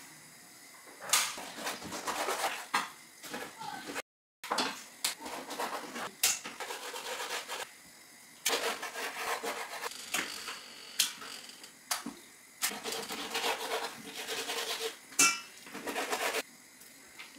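Kitchen knife cutting cleaned cow tripe (shaki) on a wooden chopping board: irregular knocks of the blade on the board with soft scraping between the strokes.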